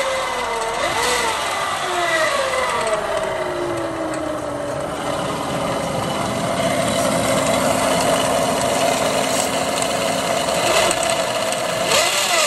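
A 2.0T Audi/VW turbo four-cylinder engine running with a high screeching whine from its failed alternator. The whine falls in pitch over the first few seconds as the idle settles, holds steady, then climbs sharply near the end as the engine is revved.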